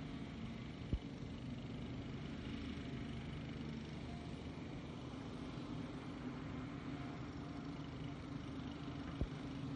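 Volvo EC290BLC excavator's diesel engine running steadily as it digs and swings a bucket of dirt over a dump truck. Two brief sharp knocks stand out, about a second in and again near the end.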